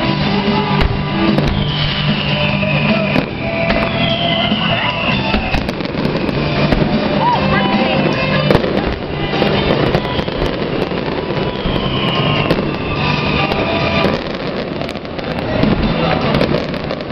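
Aerial fireworks going off in quick succession, with many bangs and crackles and several falling whistles, over steady background music.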